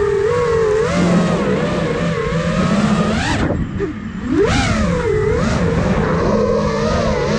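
Five-inch FPV quadcopter's motors and propellers whining, the pitch rising and falling with the throttle. About halfway through, the throttle drops and the whine falls away briefly, then swells back up.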